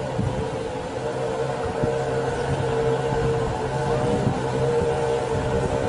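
Motorcycle engine running at a steady pitch as the bike wades through deep floodwater, with the rush of water pushed ahead of it.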